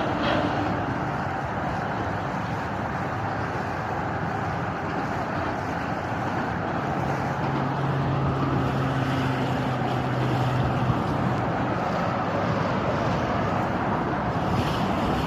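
Steady rumble of a sailboat under way, with wind on the microphone, and a low droning tone from about seven to eleven seconds in.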